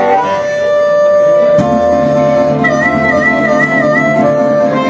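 Harmonica played in a neck rack over resonator guitar accompaniment: long held harmonica notes, one of them wavering high in the middle, over steady low guitar bass notes, with a guitar strum about a second and a half in.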